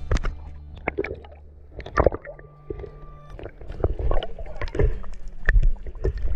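Water splashing and gurgling, with irregular knocks and clicks throughout.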